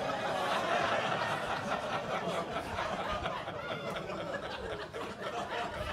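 Audience laughing, with overlapping chuckles and voices, gradually dying down toward the end.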